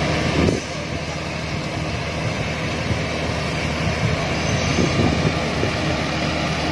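Hitachi hydraulic excavator's diesel engine running steadily under load as it works the boom and bucket.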